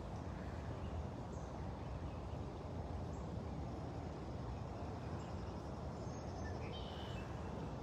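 Steady outdoor background noise, mostly a low rumble, with a few faint short high chirps.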